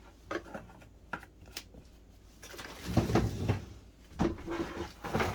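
Clicks and knocks of handling the washing machine's detergent dispenser and bottles: a few light clicks, a louder clatter about three seconds in, and more knocks near the end.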